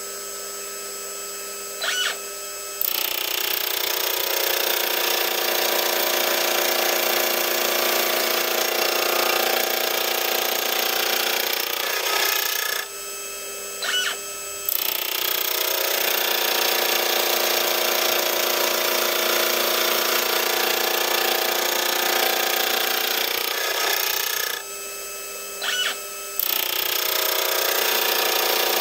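Milling spindle and gear cutter cutting teeth in a change-gear blank: the spindle hums steadily while the cutter goes through the blank with a loud, steady cutting noise lasting about ten seconds, three times. In each quieter gap between cuts there is a short burst as the stepper-driven rotary table indexes the blank to the next tooth.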